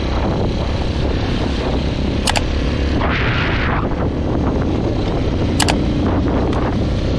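Italika DM150 150 cc single-cylinder motorcycle riding on a dirt track: steady engine and wind noise, with two sharp clicks, about two and five and a half seconds in, and a short rushing hiss about three seconds in.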